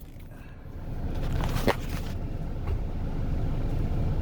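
Car running with a steady low rumble that builds up about half a second in, and a few light clicks.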